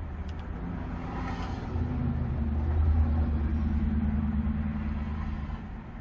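A low vehicle engine rumble that swells about two seconds in and fades again near the end.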